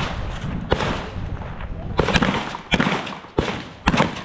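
A string of shotgun shots fired in quick, uneven succession, some coming as close pairs, each with a short echoing tail.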